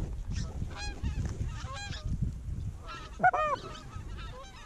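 Canada geese honking: a string of short honks, one louder than the rest a little over three seconds in.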